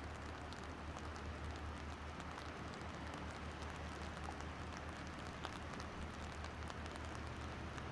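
Steady rain falling, with many small drops ticking close to the microphone over a low, steady hum.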